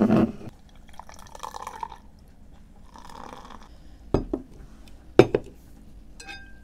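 Beer poured into a glass in two short fizzing spells, then the full glass set down on the table with two sharp knocks and a brief ring near the end.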